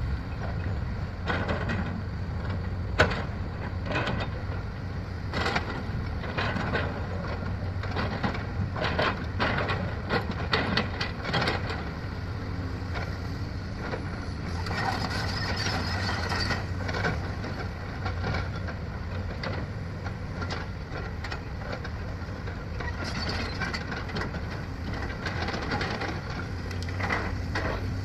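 Diesel engine of heavy earthmoving machinery running steadily, with many sharp clanks and knocks over the first half and a stretch of hissing and rattling about halfway through.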